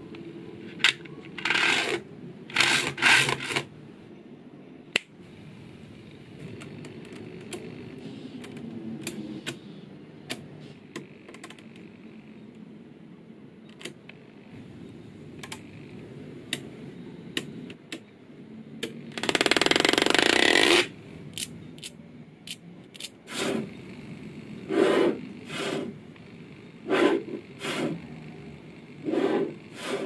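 Small neodymium magnetic balls clicking sharply as they snap together and are pressed onto a magnetic-ball model, with rubbing and scraping of the ball structure. About two-thirds through comes a longer, louder scrape lasting about two seconds, followed near the end by a series of short rubbing scrapes.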